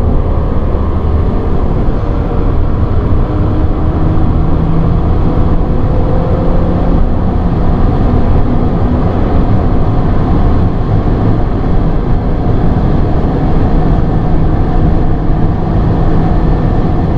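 Inside the cabin of a 2014 Audi A3 Sedan with the 1.4 TFSI four-cylinder turbo petrol engine, cruising at Autobahn speed: a steady rush of tyre and wind noise over a low, even engine note.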